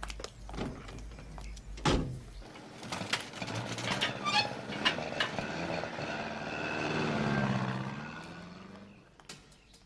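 A car door shutting with a thud about two seconds in, then an old car's engine running as it drives off, growing louder and then fading away near the end.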